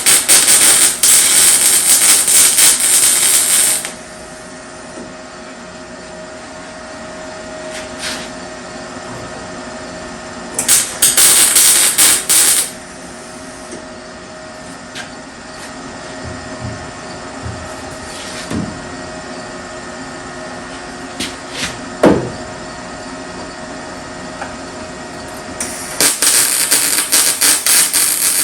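MIG welder stitch welding a steel quarter panel: three bursts of crackling arc, about four seconds, two seconds, and a longer one starting near the end. A steady hum runs between the welds, and a single sharp knock comes about two-thirds of the way through.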